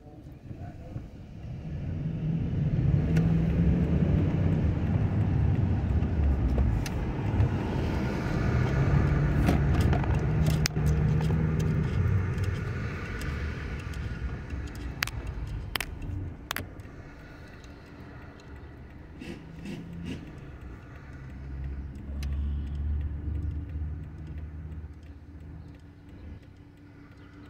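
Car engine and road noise heard from inside the cabin as the car drives, swelling for about ten seconds and then easing off as it slows, with a smaller swell near the end. A few sharp clicks come about halfway through.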